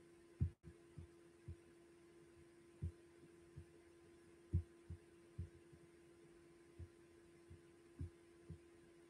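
Quiet room tone with a steady hum, broken by about a dozen short, low thumps at uneven intervals.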